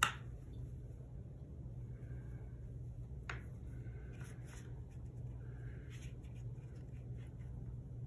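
Faint sounds of watercolor painting: soft scratchy brush strokes on paper, with a sharp tap at the start and another about three seconds in. A steady low hum runs underneath.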